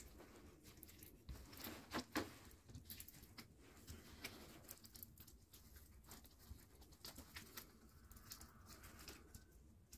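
Quiet handling noises from wiring a lemon bonsai: faint scattered clicks and rustles, with two sharper clicks about two seconds in.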